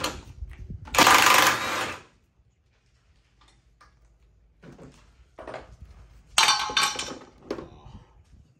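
Cordless impact wrench hammering in a burst of about a second, about a second in, breaking loose a 13 mm frame bolt. Later, a shorter burst of metallic clattering and ringing.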